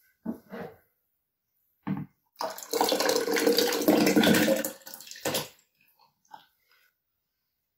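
Lemon juice and pulp poured from a plastic citrus juicer bowl into a glass jug, splashing for about two and a half seconds. A few short knocks come before the pour and one after it.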